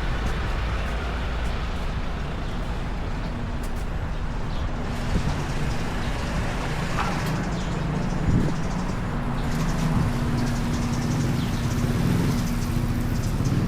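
Street traffic: motor vehicle engines running and passing close by, with a steady low engine hum that grows stronger from about five seconds in and a short knock about eight seconds in.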